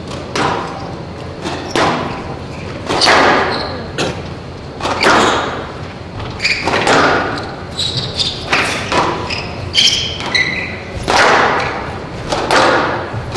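Squash rally: the ball smacked by racquets and off the court walls, sharp echoing hits about once a second, about a dozen in all.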